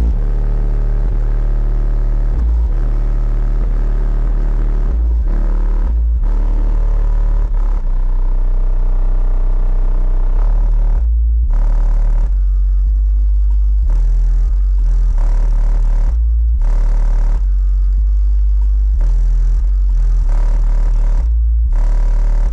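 Bass-heavy music played loud through a car stereo with four 15-inch subwoofers in the back of a Toyota 4Runner. Deep bass notes step from pitch to pitch every second or so.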